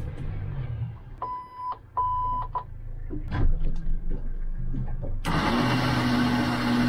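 Boat's outboard motor starting and running with a low rumble, with two short high beeps from the helm's warning buzzer about one and two seconds in. About five seconds in, a loud steady rush of noise with a steady engine hum takes over suddenly.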